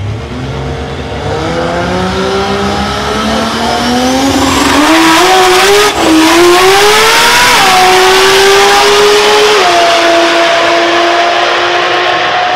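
Nissan Skyline R33 drag car making a pass: its RB straight-six revs up through the gears, growing much louder as it comes by. The pitch drops at three gear changes in the second half, then holds a steady high note as it runs on toward the finish.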